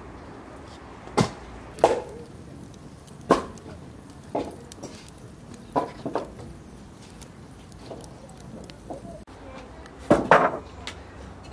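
Scattered short knocks and thuds roughly a second apart, then near the end the loudest, a quick cluster of sharp wooden chops from an axe splitting firewood.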